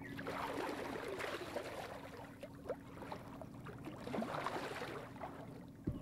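Water splashing and sloshing, with short irregular splashes over a faint steady low hum.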